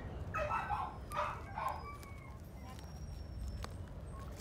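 Dogs whining and yipping: three short, high calls in about the first two seconds, then quieter with a few light ticks.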